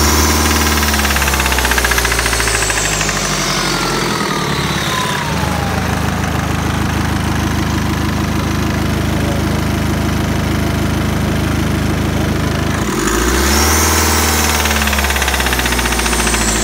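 A cold 2012 BMW 520d's diesel engine idling with a knock, revved twice: dropping back from a rev at the start, running steadily, then revved again about 13 seconds in and falling back to idle near the end.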